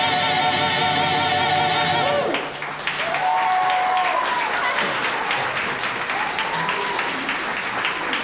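A mixed choir holds its final chord, which cuts off with a short downward slide about two seconds in. The audience then breaks into applause, with a few voices cheering over the clapping.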